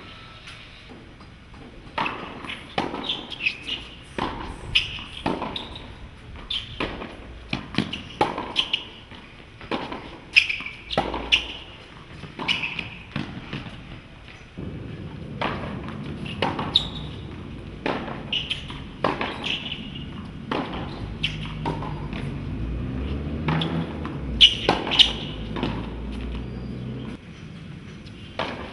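Tennis ball being struck by rackets and bouncing on an outdoor hard court: a string of sharp pops at irregular intervals. From about halfway through, a low rumble runs underneath.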